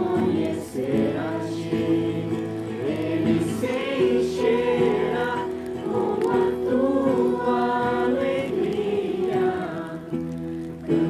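A group of people singing a Portuguese worship song together, with steady instrumental accompaniment underneath.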